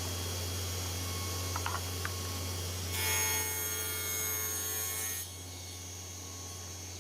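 Power saw running and cutting plywood, with a steady motor hum; the cut gets louder for about two seconds from around three seconds in, then the sound drops back.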